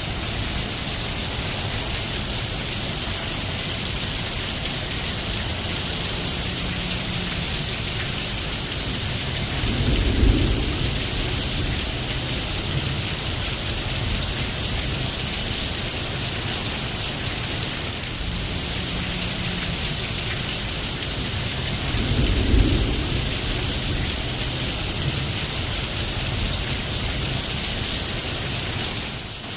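Steady heavy rain hissing, with a low rumble of thunder swelling and fading about ten seconds in and again about twenty-two seconds in.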